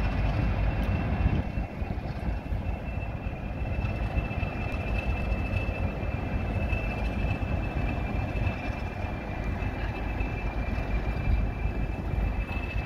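Class 20 diesel locomotive's English Electric eight-cylinder engine running: a steady low rumble with a thin, steady high whistle over it.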